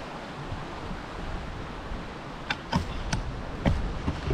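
Steady rushing of a river running over rocks, with a cluster of sharp clicks and knocks in the last two seconds.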